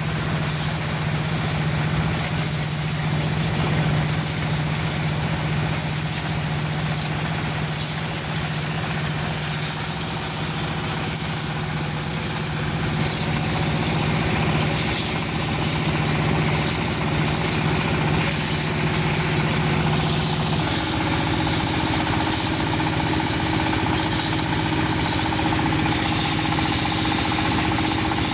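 Dowel machine turning broom handles, running steadily. A constant hum carries a higher hiss that swells and drops every couple of seconds, and the hum's tone shifts about two-thirds of the way through.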